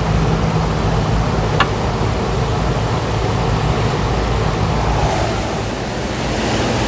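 Steady rushing noise with a low hum underneath, like a running fan or machine, with a faint click about a second and a half in.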